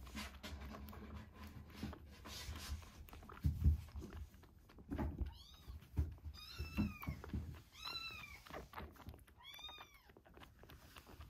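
Young kitten mewing four times in the second half, short high-pitched cries that rise and fall. Soft low knocks and rustles of bottle feeding run underneath.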